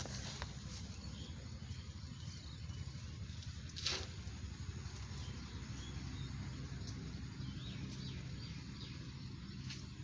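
Outdoor garden ambience: a steady low hum with faint bird chirps now and then, and one sharp click about four seconds in.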